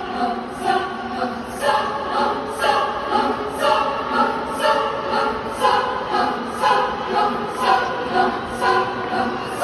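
Choral singing with several voices holding pitches, pulsing about once a second, in a large reverberant stadium.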